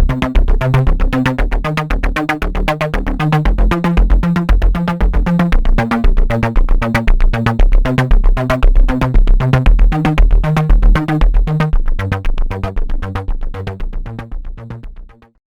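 Electronic background music: a synthesizer loop with a steady beat and a repeating bass line, fading out over the last few seconds.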